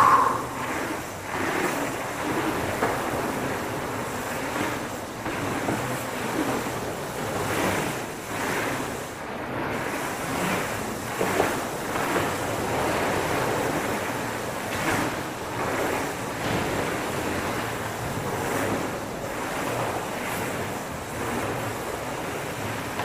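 Mountain bike tyres rolling over an indoor dirt trail, heard as a steady rushing noise that swells and eases with the riding, with a sharper bump at the start and another about halfway through.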